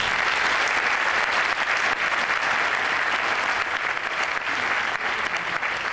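Audience applauding: many hands clapping together, starting all at once and holding steady.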